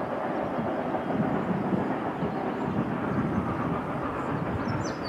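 Steady noise of a steam train working in the distance, likely 2-8-0 steam locomotive #734, with no clear exhaust beat. A bird gives a few short falling chirps near the end.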